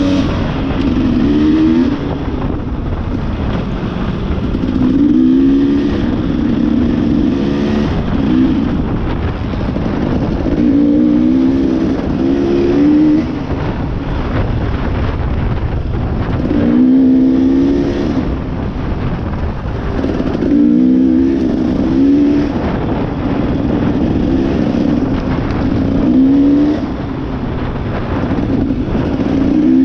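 Dirt bike engine running hard, its pitch rising in repeated sweeps every couple of seconds as it revs up and shifts, over a steady rushing noise.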